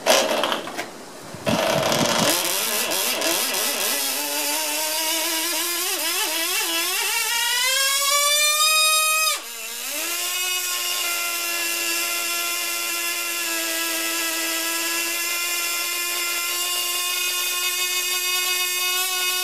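Carl Profi 15 model engine running flat out on a test bench, with a high-pitched whine. It catches loudly about a second and a half in and its pitch climbs steadily for several seconds. About nine seconds in it dips sharply, then settles into a steady high-pitched scream with a slight wavering.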